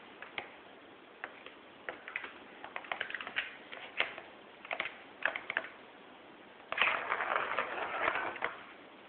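Kittens moving about and playing, making scattered light taps and clicks, then a stretch of rustling lasting about two seconds from about seven seconds in.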